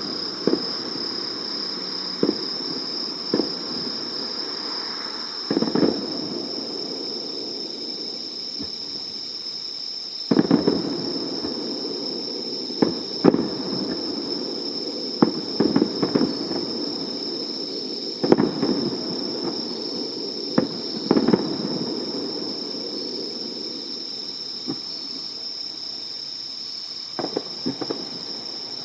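Fireworks display: aerial shells bursting in irregular volleys of sharp bangs, each trailing off into a rolling rumble, with short lulls between the volleys.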